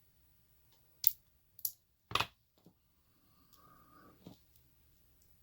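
Small metal tools and a padlock being handled on a desk: a few sharp clicks and taps, the loudest about two seconds in, then a brief faint scrape and one more tap.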